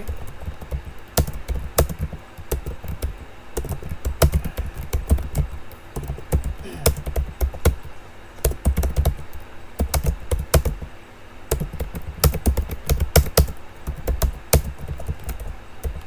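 Computer keyboard being typed on steadily, a few irregular key clicks a second, at a normal, unhurried typing speed.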